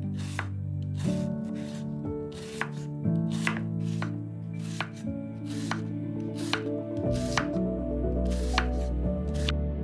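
Chef's knife slicing a peeled onion on a wooden cutting board. Each crisp cut ends in a knock on the board, about two a second, and they stop shortly before the end. Soft background music with held tones plays underneath.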